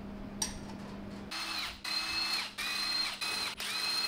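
A handheld power driver runs in about five short bursts starting about a second in, spinning out the perimeter bolts that hold the regulator's spring chamber on. Each burst is a steady motor whine.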